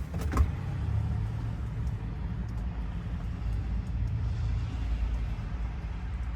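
A vehicle engine running with a steady low rumble, and a single sharp click about half a second in.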